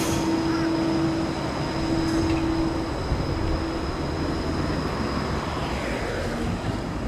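G:link light-rail tram (Bombardier Flexity 2) passing close by and running away along a curve. Its drive gives a steady hum that fades after about three seconds, over low wheel-on-rail rumble, with a thin high whine.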